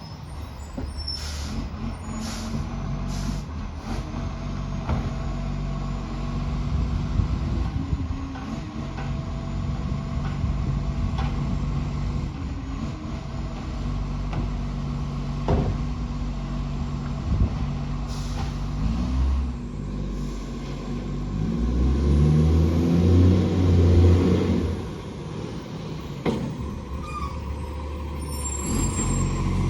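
Side-loader garbage truck's diesel engine running with a massive exhaust leak, giving a deep, rough exhaust note, with a few short air-brake hisses in the first few seconds. About 22 seconds in the engine revs up louder for a few seconds, then drops back.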